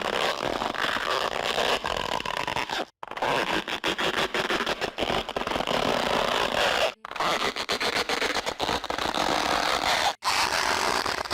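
A dense, noisy clatter and scraping, cut into four stretches by short silences.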